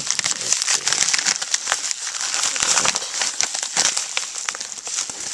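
Packaging crinkling and rustling as it is handled and opened by hand, with a steady run of irregular crackles and small clicks.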